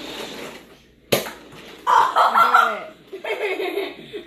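A sharp click about a second in, then a person's high-pitched wordless vocal sounds.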